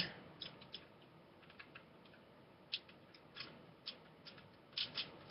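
Faint, scattered small clicks and taps of a screwdriver bit being tried in a screw on a Crosman Pumpmaster BB gun; the bit doesn't quite fit.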